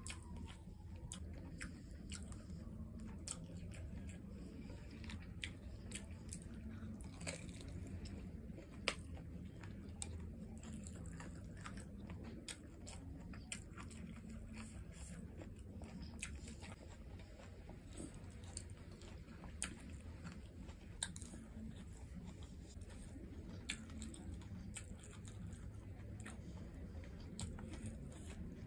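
Close-miked chewing of a mouthful of rice: wet smacks and sharp mouth clicks come every second or so, over a steady low hum.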